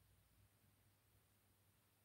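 Near silence: faint room tone with a low steady hum.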